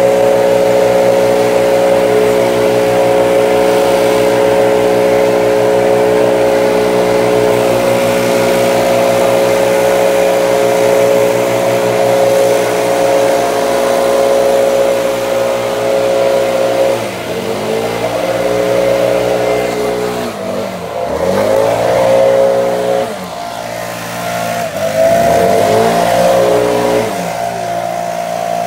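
Stihl backpack leaf blower engine running at steady high throttle; in the second half the throttle is eased off and opened again several times, the pitch dipping and rising back each time.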